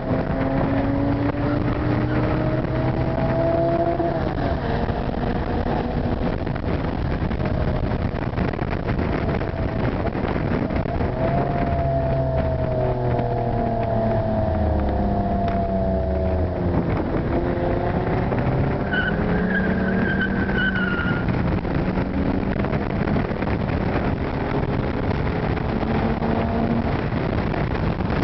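Toyota Supra's straight-through exhaust with cannon muffler and resonated tip under hard acceleration on track, heard from inside the cabin: the engine note rises through the revs and drops sharply at each gear change. A brief high whine rides over it for about two seconds near two-thirds of the way through.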